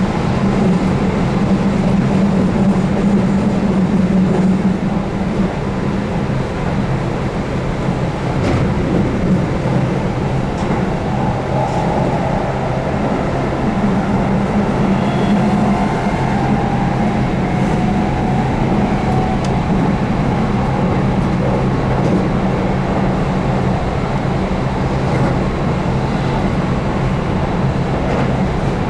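Keihan 8000 series electric train running at speed: a steady sound of wheels on the rails together with the hum of its DC traction motors.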